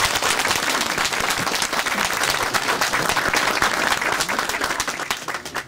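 A crowd applauding with many hands clapping, thinning out and fading near the end.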